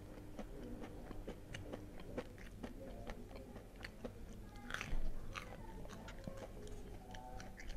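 A person chewing a mouthful of breaded, deep-fried crispy sausage: a run of faint, small crunches of the crisp coating, with one louder chewing sound about five seconds in.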